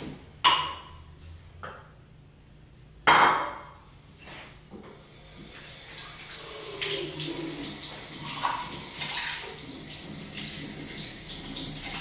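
Two sharp clatters of crockery being set down, then a kitchen tap running steadily from about five seconds in, with plates and cutlery clinking under the water as dishes are washed by hand.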